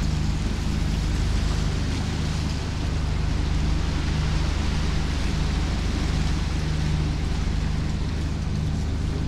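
Steady wind and water rushing past a sailing catamaran under way at sea, with a constant low hum underneath.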